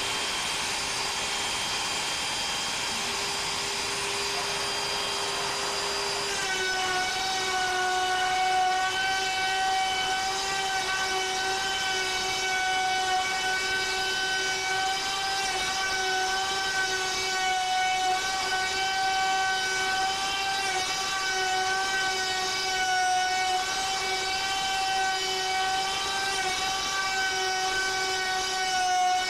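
Router spindle on a CNC Shark running at a steady high whine while its bit mills a rectangular pocket in wood. About six seconds in the pitch drops slightly and the whine grows louder, then holds steady.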